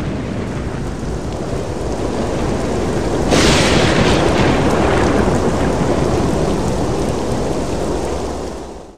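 Thunderstorm sound effect: rain with rumbling thunder, a loud thunderclap breaking about three seconds in and rolling on, then fading out near the end.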